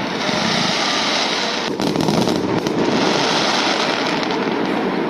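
Fireworks going off in a continuous, dense crackling barrage.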